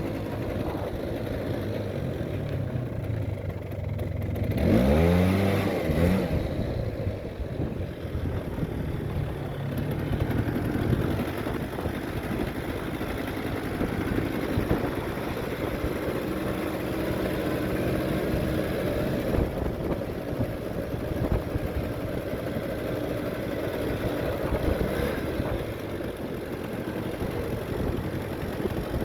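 Vintage Polaris 400 4x4 ATV's two-stroke engine running steadily under way, with a rev about five seconds in where the pitch climbs and falls back.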